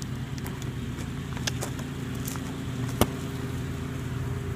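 An engine runs steadily with a low hum throughout. A single sharp knock about three seconds in is the loudest sound.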